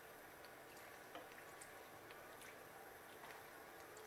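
Faint, gentle frying: a pizza fritta in a pan of oil bubbling quietly, with sparse small irregular ticks and crackles. The oil is not hot enough, by the cook's own account, so it is barely sizzling.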